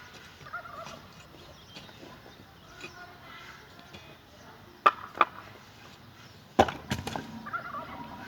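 Sharp knocks of construction work, like wood or material being struck: two knocks about five seconds in, then a louder pair about a second and a half later.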